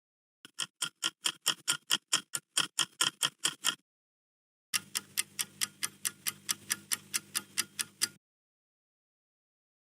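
Two quiz countdown-timer clock-ticking sound effects in turn: fast, even ticks, about five or six a second, for about three seconds, then after a short gap a second run of ticks over a steady low hum, stopping abruptly about eight seconds in.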